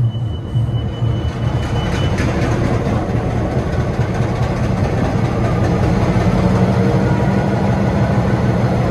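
A train's engine running steadily with a low drone. A thin high whine stops about two seconds in.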